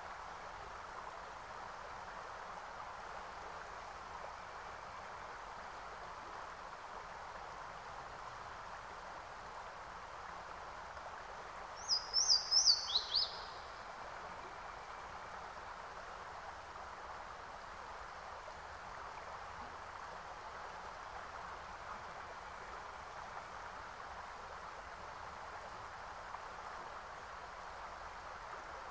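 A bird's short call about twelve seconds in, a quick run of high chirps sliding downward, over a steady, even hiss.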